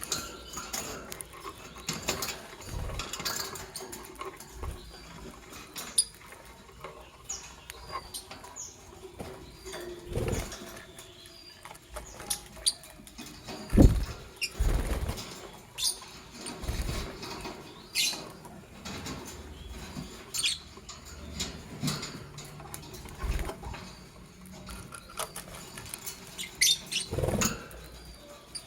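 Lovebirds making short squeaky chirps amid scattered clicks and scuffling, with one louder knock about halfway through.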